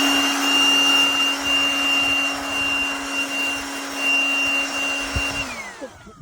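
Abeden HY-8012 cordless blower's brushed motor running at a steady high speed, with a rush of air and a steady whine. Near the end it is switched off and the whine falls away as the motor winds down.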